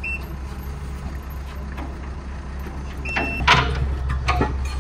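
Heavy vehicle engine running steadily as a low hum, with a short high beep about three seconds in and a couple of brief noises near the end.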